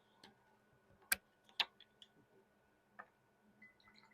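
A few light, sharp clicks and taps, about four in all, from a small paintbrush and little lidded paint containers being handled while gouache is mixed.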